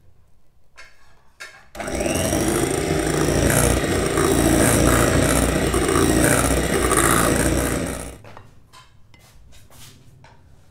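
Electric hand mixer beating egg and sugar batter for a sponge cake. It is switched on about two seconds in, runs steadily for about six seconds, then stops. Faint clicks and taps come before and after.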